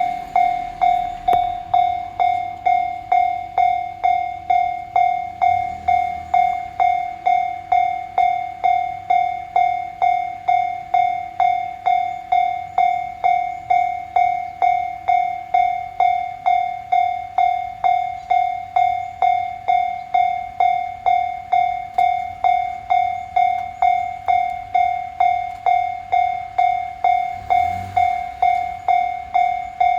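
Japanese railway level-crossing warning bell ringing steadily, about two dings a second, one clear ringing tone each: the crossing is closed for an approaching train.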